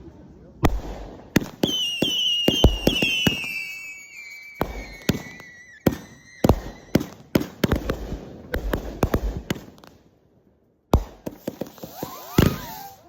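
Fireworks going off: a string of sharp bangs, with a whistling firework's whistle falling in pitch from about a second and a half in to about six seconds. A short lull just before eleven seconds, then more bangs.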